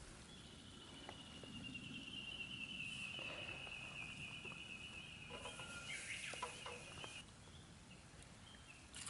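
A long, high, rapid trill in the background, held for about seven seconds and falling slightly in pitch, typical of a bird or calling insect. A few light clicks and rustles come in its second half as the grilled bamboo shoot is lifted off the charcoal grill.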